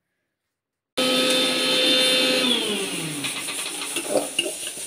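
After about a second of silence, a small electric motor cuts in with a steady whine. About two and a half seconds in it winds down, its pitch falling over about a second. A few light clinks follow near the end.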